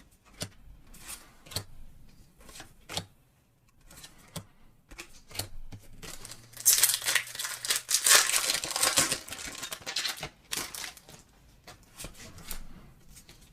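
A Pokémon trading card booster pack's foil wrapper being opened. A few light taps and clicks of card handling come first, then a few seconds of loud tearing and crinkling of foil near the middle, then more light clicks.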